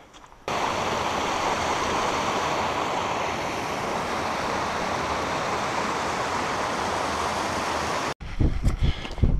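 Small mountain stream rushing over rocks, a steady even water noise that starts abruptly about half a second in and cuts off sharply shortly before the end.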